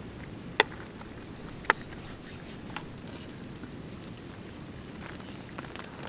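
A metal spoon clinks sharply twice against a steel cooking pot, about a second apart, with a fainter clink a second later, as rice is scooped out. Steady low background noise underneath.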